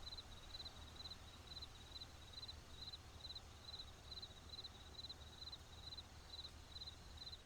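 Faint cricket chirping, about two short chirps a second, over a low hum. It cuts off suddenly at the end.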